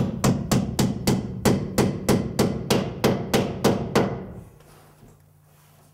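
Hammer driving a nail through a drywall sheet into a wood stud: quick, even blows, about four a second, that stop about four seconds in.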